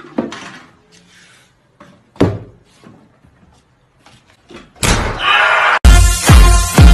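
Two heavy thuds about two seconds apart, each with a short ringing tail. Near the end comes a loud, harsh blast of noise, and then very loud bass-heavy music cuts in, its deep bass notes sliding downward.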